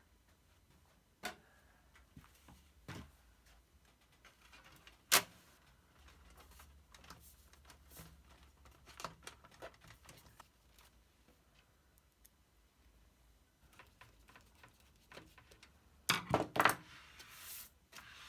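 Scattered light clicks and knocks of small hard objects being handled, with one sharp click about five seconds in and a quick run of clattering near the end.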